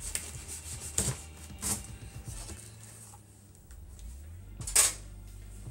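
Scissors cutting the packing tape on a cardboard box: a few short, scratchy cuts, the loudest near the end.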